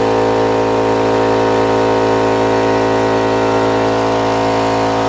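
Husky portable air compressor's motor and pump running, a loud, steady hum at one unchanging pitch.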